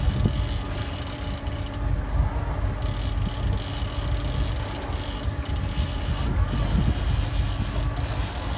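Wind buffeting the phone's microphone over the steady running of a boat's engine and the wash of choppy water.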